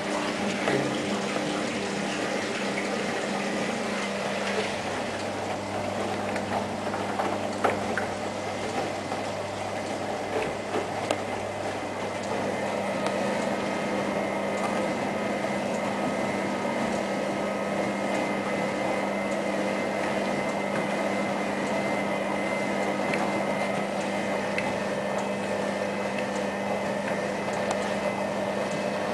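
Hoover ÖKOLOGIC WA1000 De Luxe washing machine running mid-cycle, water moving inside it with a few knocks. About twelve seconds in it settles into a steady motor hum with a faint whine.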